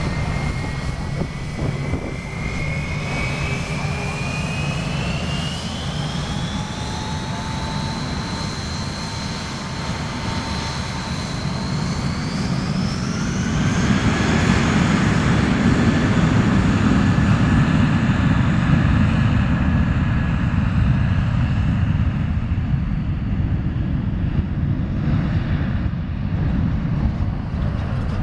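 Jet aircraft engines spooling up: a whine that rises steadily in pitch over the first dozen seconds, then a louder, deep rumble of high thrust that slowly eases as the whine drops away.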